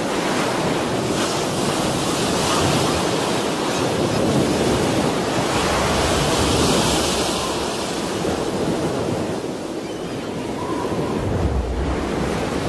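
Rushing noise of wind and ocean surf, swelling and easing, loudest about halfway through, with a low rumble near the end.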